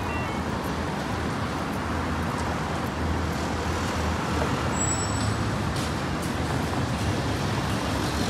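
Steady road traffic noise at a busy city intersection, vehicles running and passing with a low hum. The last notes of the pedestrian crossing's guidance melody end in the first moment.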